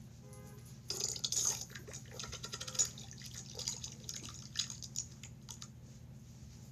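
Fart sound effect: a long, irregular run of sputtering pops and crackles, starting about a second in and lasting about four and a half seconds.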